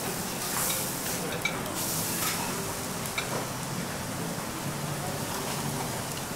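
Steady sizzling from a hot teppanyaki steel griddle, with a few light clicks of utensils.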